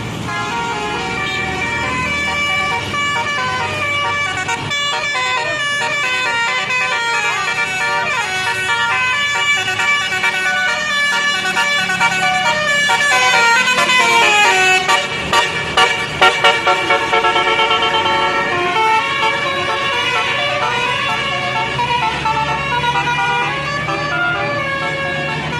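Basuri telolet bus horn, a multi-tone musical air horn, playing a tune of stepped notes for the whole stretch, with a falling slide of notes about halfway through.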